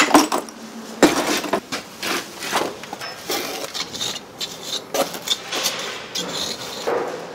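A bricklayer's hammer knocks sharply on a brick a couple of times near the start, trimming it. Then a steel jointing tool scrapes and presses wet mortar into the joints under the bricks, giving irregular scrapes and clicks of metal on brick and mortar.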